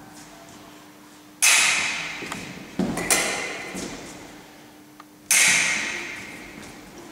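Foil blades clashing in beats: two sharp metallic strikes, about a second and a half in and again about five seconds in, each ringing off in a large hall. Duller thuds of fencers' feet stamping on a wooden floor come between them.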